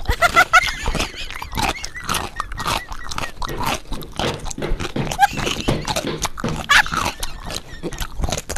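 Close-up chewing of a mouthful of marble cake: a continuous run of wet smacking and clicking mouth noises with a few short hums.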